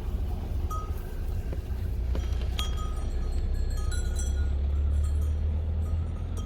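Steady low rumble of wind on the microphone, with scattered short clinks of livestock bells.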